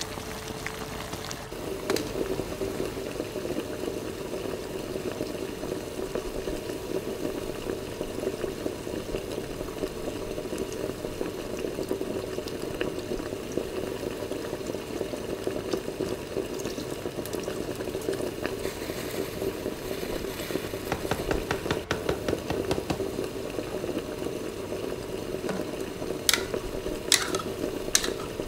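Chicken simmering in a pan of liquid, bubbling steadily, with cooking cream poured in partway through. A few sharp clicks near the end.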